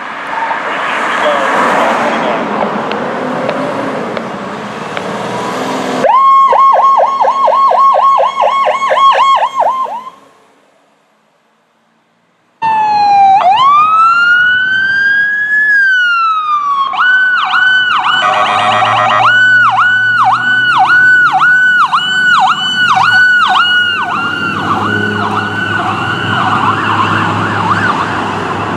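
Electronic emergency-vehicle sirens on the Powercall tone, a quickly repeating upward whoop. After a few seconds of noisy wash, one siren whoops about four times a second and then drops away. Another winds up in a long rising sweep, falls back, and settles into whoops about twice a second, with a second, faster warble laid over it briefly.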